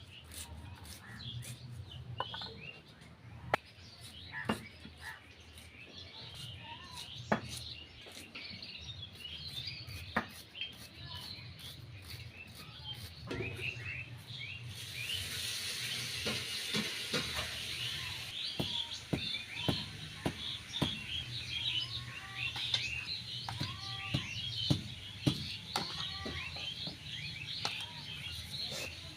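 Many small birds chirping and calling throughout, with scattered sharp knocks. About halfway in, a steady hiss starts up and is strongest for a few seconds.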